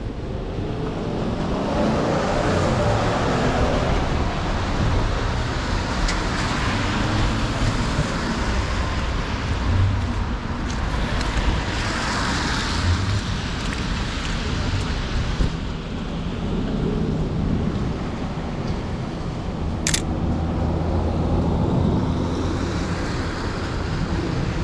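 City street traffic: cars passing in slow swells over a steady low rumble, with one brief sharp click about twenty seconds in.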